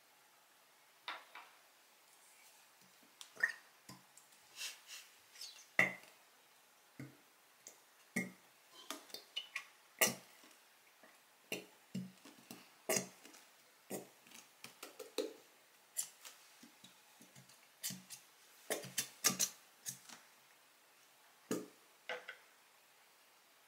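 Homemade slime being squished and worked, a run of irregular short clicks and pops, a few a second.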